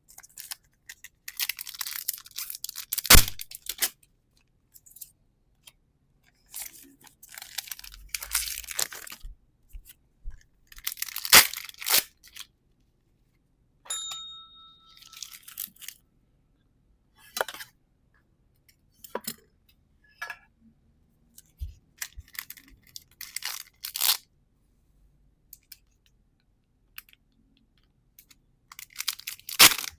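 Trading card booster pack wrappers tearing and crinkling, and cards being handled, in irregular bursts with pauses and a few sharp taps. A short ringing tone sounds about halfway through.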